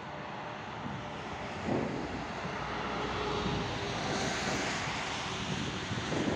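SNCB 'Break' electric multiple unit pulling away and approaching, its motors and wheels on the rails growing steadily louder as it nears. A single thump comes about a second and a half in.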